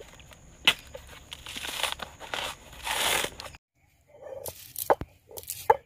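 Coconut husk being torn off on a pointed husking stake: crunching and tearing of the fibres in several rough bursts. After a sudden cut, a few sharp clicks of a stone roller knocking on a stone grinding slab.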